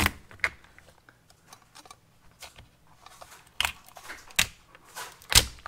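A kitchen knife splitting a spiny lobster: about half a dozen sharp cracks and clicks of the shell, spread out with pauses between them.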